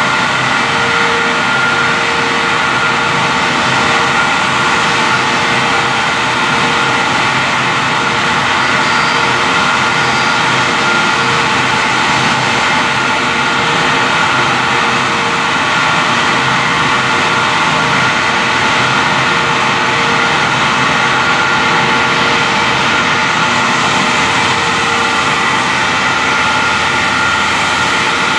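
Steady roar of a paint spray booth's air extraction together with the hiss of a siphon-feed compressed-air spray gun spraying paint. The level stays even, with a steady hum running through it.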